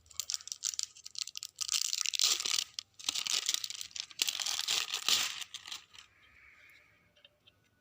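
Packaging of a Cobra manja kite-string spool being torn open and crinkled, in scratchy irregular bursts for about six seconds, then only faint rustling.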